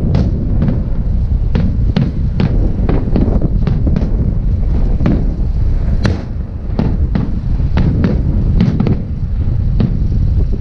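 Fireworks salute: an irregular run of sharp bangs, about two a second, over a steady low rumble. The sharpest crack comes about six seconds in.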